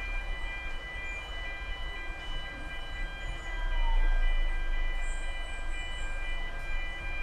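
Field recording of a steam train: a low rumble with several steady high tones held over it, swelling louder about four seconds in.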